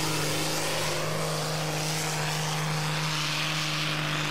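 Diesel engine of a pulling tractor at full throttle during a fast-pulling run: a steady drone held at one pitch, with a rushing hiss over it.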